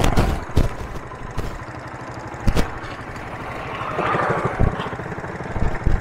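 Motorcycle engine ticking over at low revs with an even low putter, with a few sharp knocks and clicks over it.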